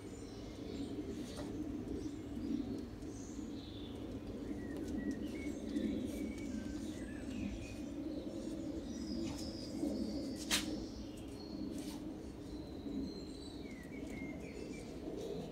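Garden birds chirping in short scattered calls over a steady low hum, with a sharp click about ten and a half seconds in.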